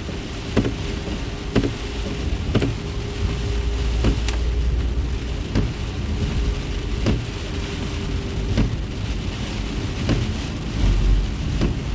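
Car driving through heavy rain, heard from inside the cabin: rain drumming on the car over a low road-and-tyre rumble, with a sharp tick about every second or so.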